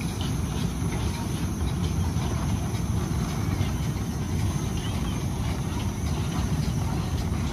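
Narrow-gauge field-railway steam locomotive pulling its passenger cars along the track: a steady low rumble with faint ticking from the wheels and running gear.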